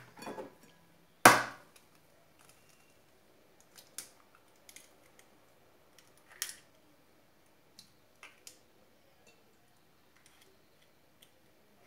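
A single sharp knock about a second in, then a few scattered faint clicks and taps.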